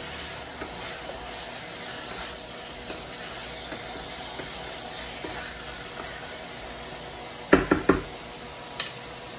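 Chicken pieces sizzling in oil in a non-stick wok while a wooden spatula stirs and scrapes them, with light ticks. Near the end, three loud knocks of the spatula against the pan, then one sharp click.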